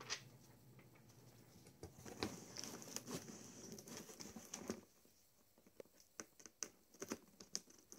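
Faint rustling and crinkling of crumpled brown packing paper, with scattered small taps and crackles as hands move it about in a cardboard box. The sounds thin out about halfway through.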